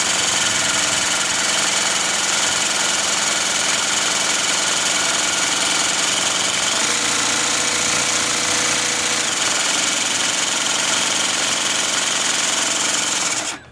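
Craftsman CMCS600 cordless jigsaw with a Bosch T130DG diamond blade running steadily while cutting 1/4-inch ceramic wall tile. It cuts off suddenly near the end.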